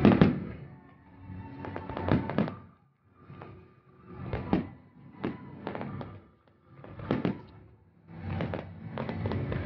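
Fireworks display shells bursting, about eight separate bangs one to two seconds apart, each trailing off in a rumbling echo. The loudest bang comes right at the start.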